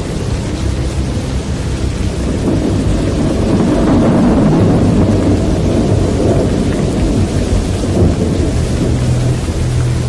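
Loud, low rumbling storm noise of strong wind, swelling about four seconds in.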